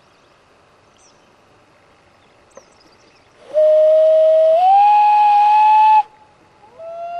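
Common loon wailing: about halfway in, a long clear call that steps up in pitch after a second and holds, then breaks off; a second wail begins near the end.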